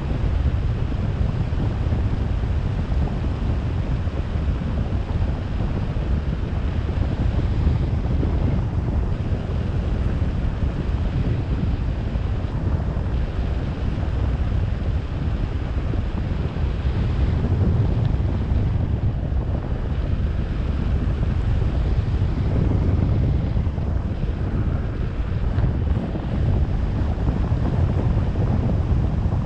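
Wind buffeting the microphone: a steady, heavy rumble and rush.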